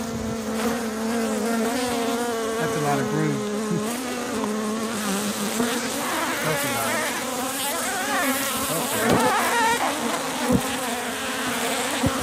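Honeybees buzzing around an opened hive, individual bees flying close by with their pitch wavering up and down. A few short knocks come near the end.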